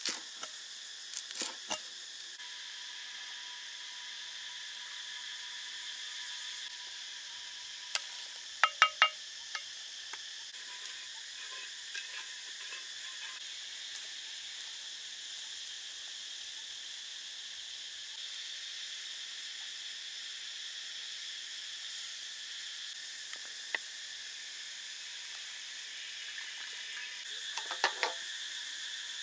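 Steady, high-pitched chorus of insects such as crickets or cicadas, with a few sharp clicks and knocks over it, the loudest a quick cluster of three or four about nine seconds in.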